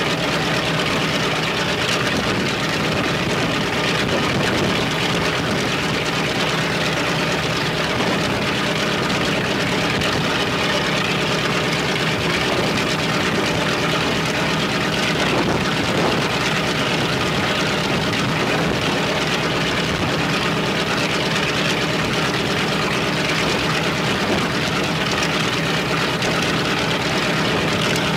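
Left Shvetsov ASh-82T twin-row radial piston engine of an Ilyushin Il-14T running steadily on a ground run, holding an even speed with no revving up or down.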